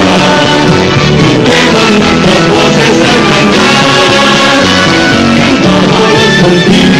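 Campaign song: rock-style band music with guitar and a sung vocal, running continuously.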